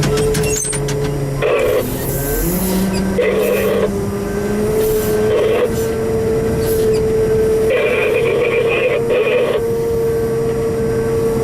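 Heavy earthmoving machinery running with a steady pitched whine, broken by several short bursts of harsher noise.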